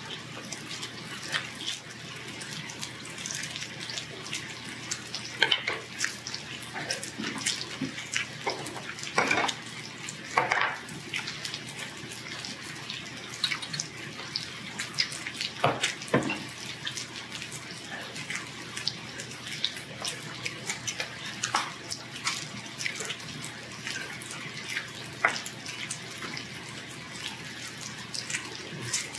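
Pork belly sizzling steadily on a tabletop grill plate, a continuous frying hiss dotted with sharp crackles and clicks.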